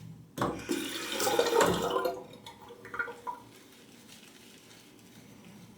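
Water running from a tap for about two seconds, followed by a few small splashes and drips, as water is added during shaving-soap lathering.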